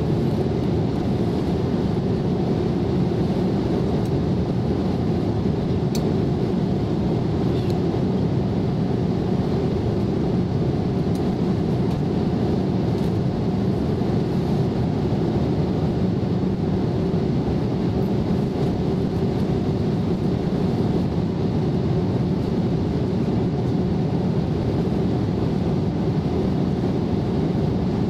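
Airliner cabin noise in flight: a steady, even low noise of the engines and airflow heard from a window seat.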